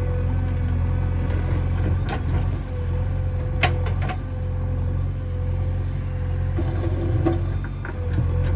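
JCB 3DX backhoe loader's diesel engine running steadily, with a few knocks, the sharpest about three and a half seconds in.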